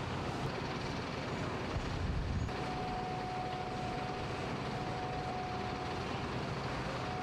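Heavy diesel machinery running steadily with a low rumble, heaviest just before the shot changes about two and a half seconds in; after that a steady high whine runs on over the engine noise.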